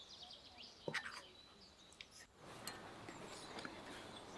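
Butter being dropped from a spoon onto flour in an enamel bowl, with one light knock about a second in, then a soft, faint rustle of hands rubbing butter into the flour. Birds chirp faintly in the background.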